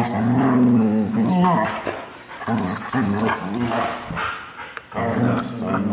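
Standard poodles vocalizing in rough play close to the microphone: several bouts of drawn-out, wavering calls with short gaps between them.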